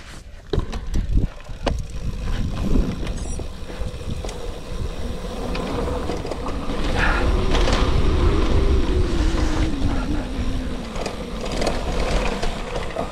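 Gravel bike being ridden over a rough surface: steady wind rumble on the microphone with the rattle and knocks of the bike, and a faint humming tone that rises and falls about halfway through.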